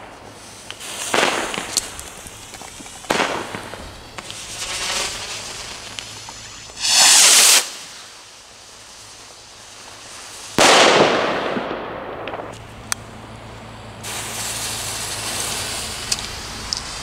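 Firework rockets launching one after another: a run of whooshes, then two very loud blasts, the second dying away over a couple of seconds. Near the end comes a steady hiss of spraying sparks as the next rockets ignite, with a few distant cracks.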